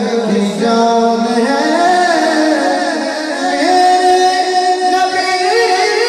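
Male naat reciter singing a devotional naat through a microphone and sound system, drawing out long held, melismatic notes.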